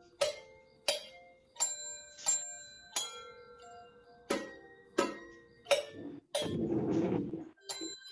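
Homemade instruments made from household objects being struck in a steady rhythm, each strike ringing with clear, bell-like pitched notes, about one and a half strikes a second. Near the end a noisy shake or rustle lasts about a second before the strikes resume.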